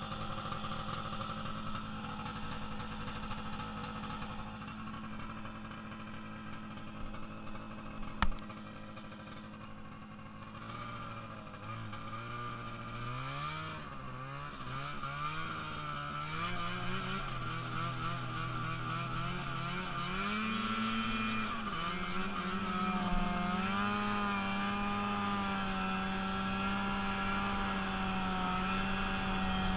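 Engine of a freshly rebuilt vehicle idling steadily. About eleven seconds in it starts revving, its pitch climbing and dropping several times, and in the last several seconds it runs steadily at a higher speed. A single sharp knock about eight seconds in.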